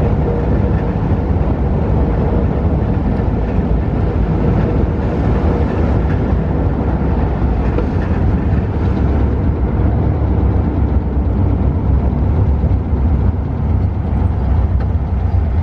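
Dune buggy driving along: a steady engine and road noise with a heavy low rumble that holds even throughout.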